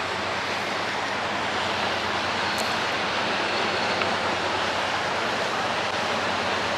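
Steady rushing outdoor noise with a low, even engine hum beneath it, from a motorboat running on the river.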